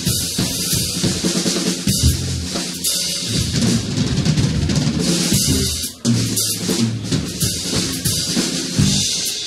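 Drum kit playing a live groove of bass drum, snare and cymbals, with an electric bass playing low notes under it; the playing stops for an instant about six seconds in, then picks straight back up.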